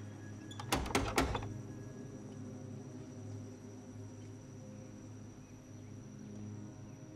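A low, sustained horror-score drone with a thin steady high tone above it, broken about a second in by a quick cluster of three or four sharp knocks.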